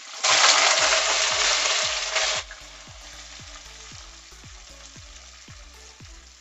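Sliced onions dropped into hot oil in a pot: a loud burst of sizzling for about two seconds, then settling to a steady, quieter sizzle as they start to fry.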